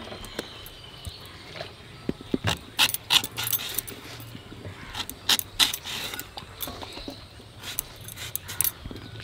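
Crisp raw green mango being sliced against an upright fixed blade (a Bengali bonti): clusters of sharp cutting crunches and clicks, with glass-and-shell bangles clinking on the wrists.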